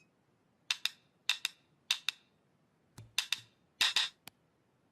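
A series of short, sharp taps or knocks, about a dozen, mostly coming in pairs with brief gaps between.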